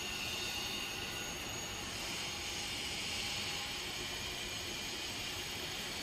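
Cable tray roll forming line running, a steady mechanical noise heard as an even hiss with faint high steady tones.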